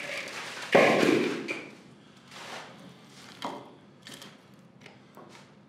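A loud thud about a second in, then a few lighter knocks and taps, as of objects being handled and set down.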